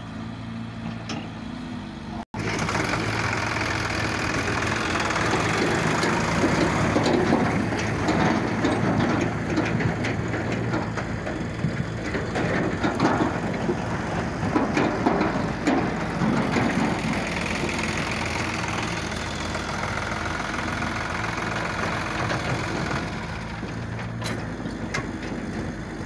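Sonalika DI-35 RX diesel tractor engine running as it pulls a trailer laden with mud across rough field ground, with the trailer's rattle and crunching under the wheels over a steady engine drone. About two seconds in, the sound drops out for an instant and comes back louder.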